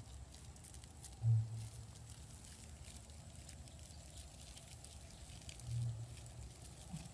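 Faint clicks of a small spoon against a steel bowl as seasoning is scooped and mixed, with two short, dull low thumps, one about a second in and one near the end.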